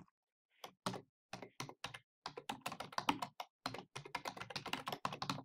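Computer keyboard typing: an uneven run of keystrokes starting about a second in, in short bursts with brief gaps, growing quicker in the second half.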